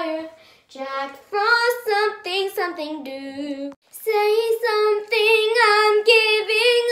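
A young girl singing unaccompanied in a slightly hoarse voice, in held, sung phrases with a short break near the middle.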